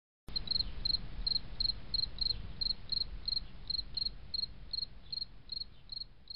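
A cricket chirping steadily, about three short chirps a second, over a low rumble.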